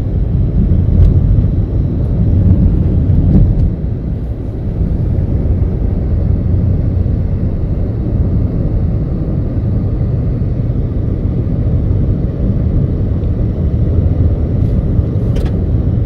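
Steady low rumble of a car driving along a road: road and wind noise, a little louder in the first few seconds.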